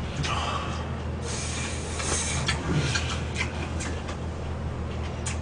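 Buckwheat noodles being slurped and chewed close to the microphone, wet and hissy for the first two seconds or so, followed by a few short sharp clicks, over a steady low hum.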